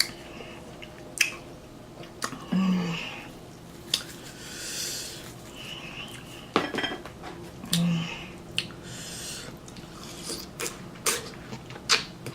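Eating sounds close to the microphone: scattered light clicks and clinks of dishes and cutlery between bites.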